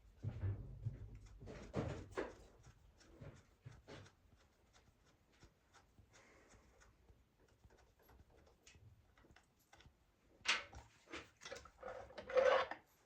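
Irregular clicks, knocks and clatter of objects being handled and set down, with a louder knock about ten seconds in and a louder clatter near the end.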